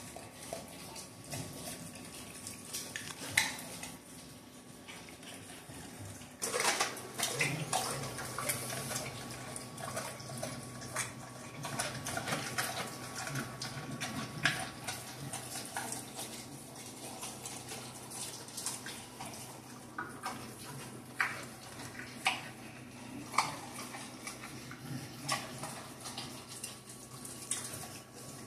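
A dog eating raw chicken: wet licking and chewing with many sharp crunches and clicks. These grow busier a few seconds in, with clinks of a stainless steel bowl on a tile floor.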